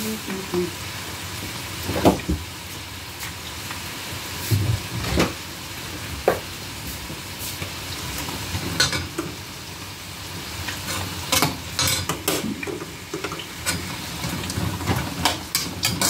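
Diced carrot, chayote and garlic sizzling as they sauté in a skillet, with repeated scrapes and taps of a spatula stirring them against the pan.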